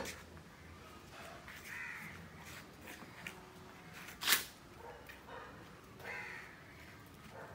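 Crows cawing outdoors, with calls about 2 s and 6 s in, and a short, sharp noise, the loudest sound, about four seconds in.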